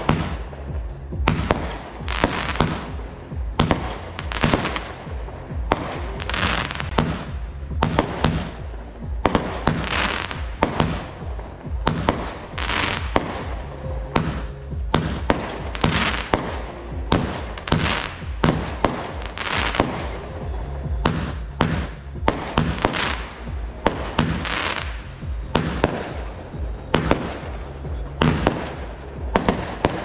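Fireworks going off over and over, popping and crackling, with a sharp crack roughly every second, over background music with a steady beat.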